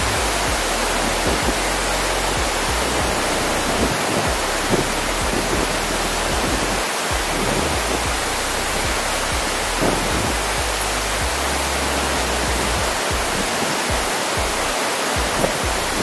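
Large waterfall pouring onto rocks close by: a dense, steady rush of falling water.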